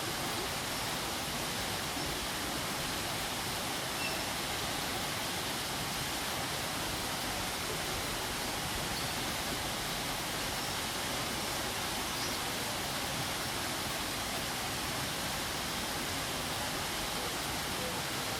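Waterfall rushing: a steady, unbroken hiss of falling water with no change in level.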